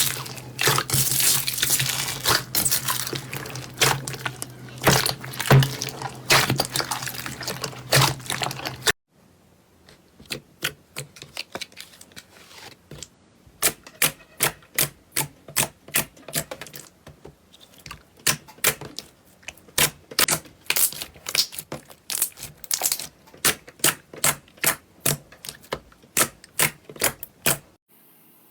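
Slime being pressed and poked by hand, making close, crackly clicking and popping sounds. For the first nine seconds or so it crackles densely over a faint low hum. Then it cuts to sharper, separate clicks and pops at an uneven pace.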